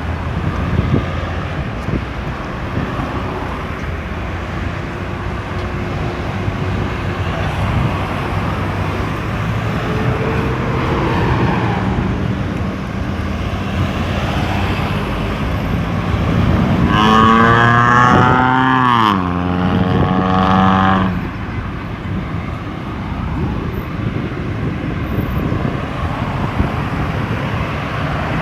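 Road traffic going around a busy roundabout, engines running steadily. About two thirds of the way through, one vehicle passes loud and close for a few seconds, its engine note dropping before it fades.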